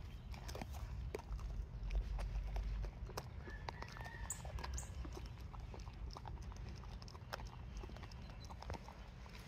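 Australian Shepherd chewing a raw chicken foot: irregular crunches and cracks of the small bones between its back teeth, over a low rumble.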